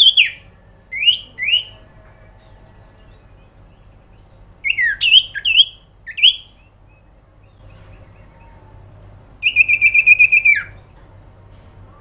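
An iora (sirpu) calling: short whistled notes sweeping upward, a cluster of them a few seconds in, then a fast, even trill about ten notes long that drops in pitch at its end.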